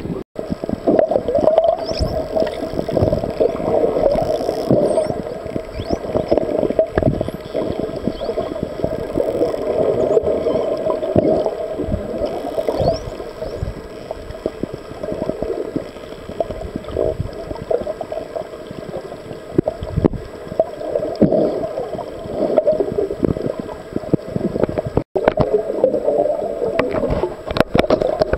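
Underwater sound picked up by a submerged camera: a continuous rush of water with a dense crackle of clicks, and a few faint high whistles that rise and fall, from the pod of dolphins.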